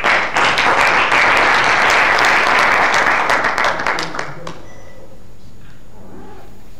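Audience applauding, clapping for about four seconds and stopping fairly abruptly.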